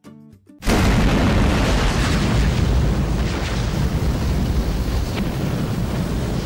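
A few short plucked guitar notes, then about half a second in a sudden loud explosion sound effect that carries on as a heavy, deep rush of fire and slowly fades.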